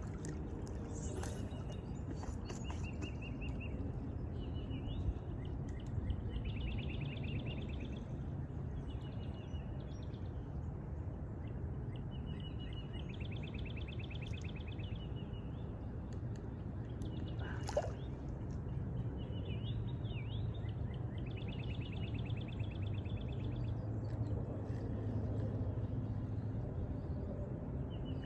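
Outdoor riverside ambience: birds singing short high trills and whistles again and again over a steady low rumble, with a few brief sharp clicks.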